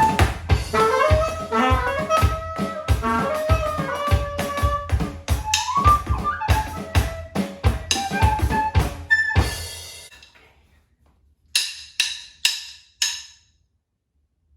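Homemade instrumental music: a melody over a drum-kit beat that fades out about ten seconds in, followed by four short, bright struck notes a little over half a second apart.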